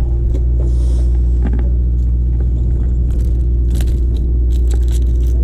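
A boat's engines running with a loud, steady low drone and a constant hum, with scattered light clicks and rattles over it.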